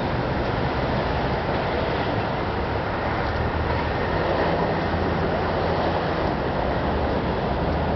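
Steady city traffic: the continuous rumble of car engines and tyres on a busy street, with a low engine drone underneath.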